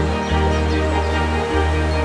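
Background music with a sustained bass line and layered held tones.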